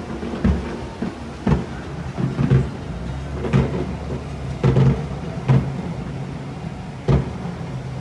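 Irregular knocks and thumps, roughly one a second, over a steady low hum.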